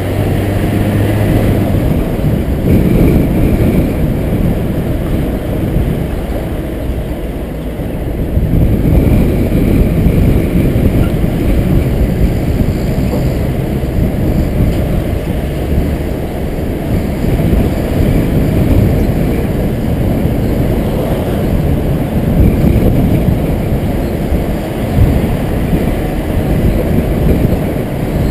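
Car driving: a loud, low, steady rumble of engine and road noise that swells and dips a little in loudness.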